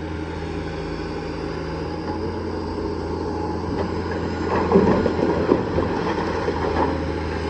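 Heavy diesel engine running steadily with a low drone, growing louder and rougher for about a second around five seconds in.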